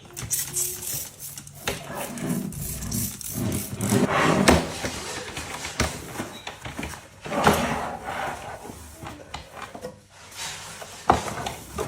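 Refrigerator drawers and shelves being pulled out and handled: plastic sliding and rubbing, with a few sharper knocks.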